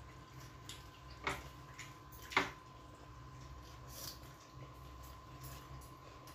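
Close-up eating sounds: soft wet chewing and lip smacks as fried rice and chicken are eaten by hand, with two sharper clicks a little over a second in and about a second later. A faint steady hum runs underneath.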